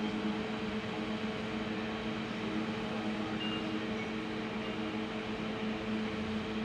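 Steady low hum with a few held tones over a soft, even hiss: background room and equipment noise, with nothing starting or stopping.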